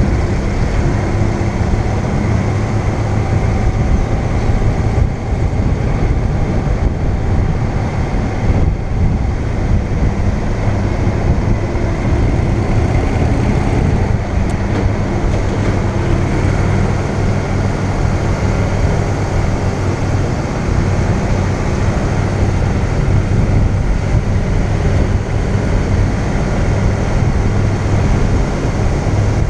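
Motorcycle engine running steadily while under way, mixed with road and wind noise.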